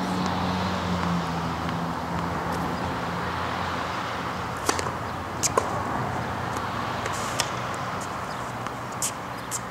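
Tennis ball struck by strung rackets and bouncing on a hard court. The first sharp pop is a serve about halfway through, and a few more sharp pops follow near the end. Under them runs a steady outdoor hiss, and a low hum fades out in the first two seconds.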